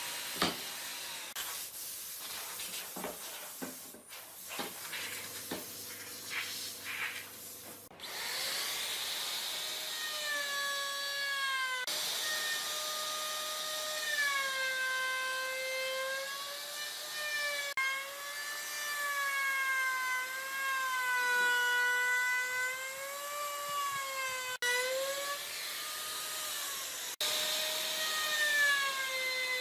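Hand tools scraping and clicking on wood for the first several seconds, then an electric power tool's motor whining, its pitch drooping and recovering over and over as it is pressed into the work.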